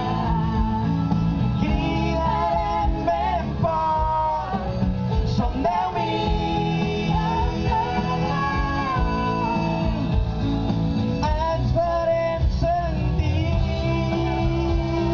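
A song sung by male and female voices together over a steady instrumental backing.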